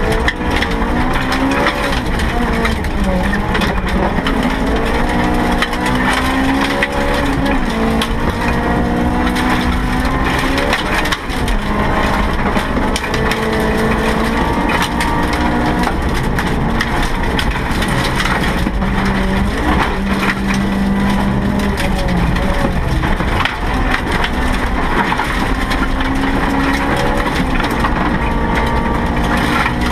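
Honda EF Civic rally car driven flat out, heard from inside the cabin: the engine note climbs and then drops again and again as the driver works through the gears, over heavy road and cabin rattle noise.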